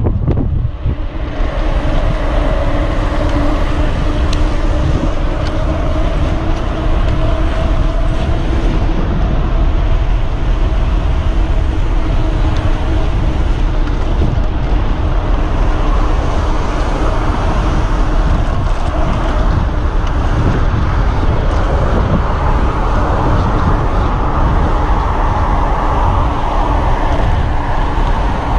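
Steady wind noise buffeting the microphone of a camera on a moving mountain bike, with tyre-on-asphalt road noise and a faint steady hum underneath.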